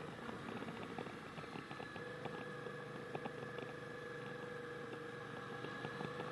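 Yamaha XSR700's parallel-twin engine running steadily under way, faint beneath wind and road noise, with a few small ticks.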